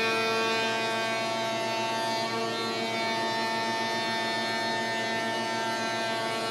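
Woodworking shaper running with a steady, whining hum that holds the same pitch throughout.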